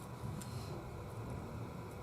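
Quiet room tone with a steady low hum and a single faint click about half a second in.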